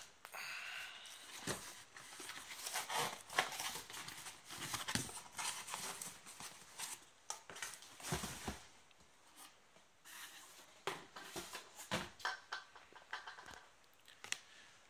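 Cardboard shipping box and packing paper being handled: irregular rustles, scrapes and knocks, busier in the first half and sparser later.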